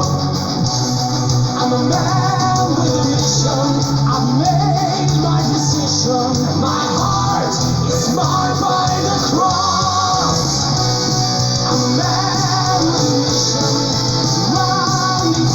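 Neoclassical melodic metal song playing, with guitars and a singing voice.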